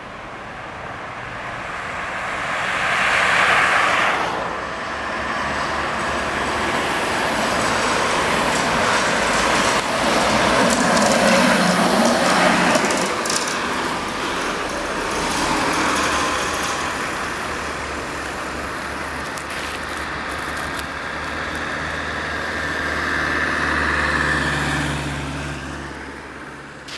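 A Tatra KT4D tram passing amid city road traffic. Wheel and motor noise and passing cars rise and fall in several waves, the loudest a few seconds in, with a low steady hum near the end.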